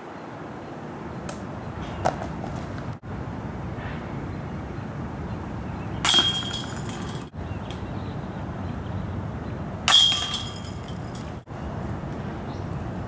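Disc golf discs hitting the chains of a chain basket twice, about six and ten seconds in, each a sharp metallic chain rattle and jingle that rings for about a second as the disc drops into the basket.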